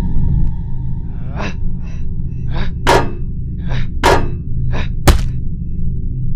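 A person's heavy gasping breaths, eight short ones in rough pairs from about a second in to five seconds in, the last ones loudest, over a low pulsing drone of film score.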